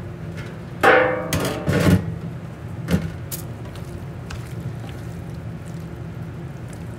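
Stainless-steel pans clanking and scraping on a steel counter, with a ringing metallic clatter about a second in and a sharp knock about two seconds later. Then faint handling sounds of hands tossing marinated chicken pieces in a steel pan, over a steady low hum.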